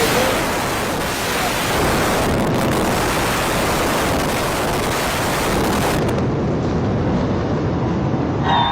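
Explosive controlled demolition of two high-rise towers: the chain of charges and the collapsing structure merge into one dense, steady rush of noise that sets in abruptly and lasts about eight and a half seconds.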